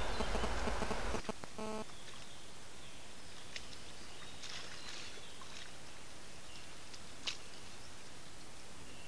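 Wild boar feeding in mud: faint rustling and clicking over steady hiss, with one sharp click about seven seconds in. At the start a louder low rumble cuts off abruptly about a second in, followed by a short pitched tone.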